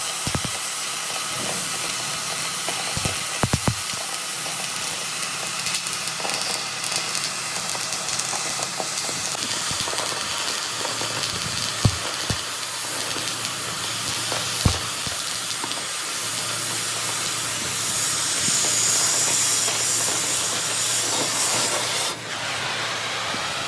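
Crankshaft machining: a machine tool running with a steady hiss over a low hum, broken by a few sharp knocks.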